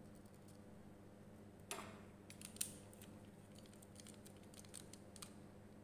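Faint clicks and scrapes of a screwdriver tester working the terminal screw of a single-pole miniature circuit breaker as a wire is fastened into its input terminal, with two sharper clicks about two and three seconds in; otherwise near silence.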